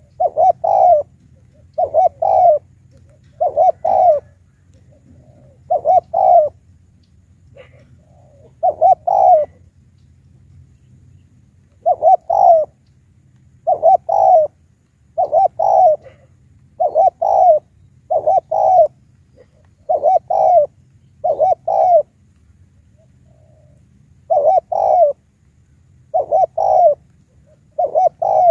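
Spotted dove cooing: short groups of two or three low coos repeated every second or two, with a couple of longer pauses.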